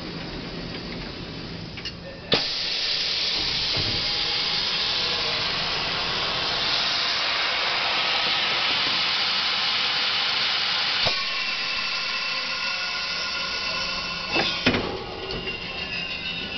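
Large double-table sublimation heat transfer press cycling: a sharp click, then a loud steady hiss for about twelve seconds, ending in a few clicks and a clatter, with faint whining tones near the end as the press moves.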